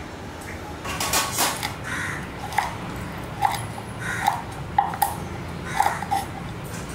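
Knife chopping fire-roasted dry coconut on a wooden board: a run of sharp knocks as the blade cuts through the charred shell and hits the board, roughly one or two a second, starting about a second in.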